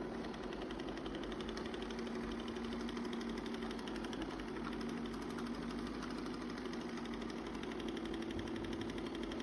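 Shark robot vacuum running with a steady motor hum as it drives itself back to its docking station on a low battery to recharge.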